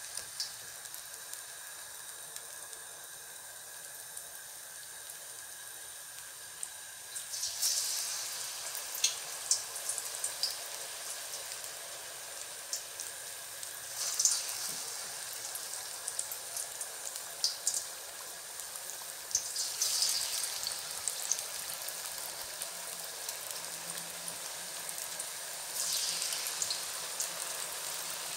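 Chicken pinwheel samosas deep-frying in hot oil: a steady sizzle with scattered sharp pops. The sizzle flares up four times, about every six seconds, as another piece is slipped into the oil.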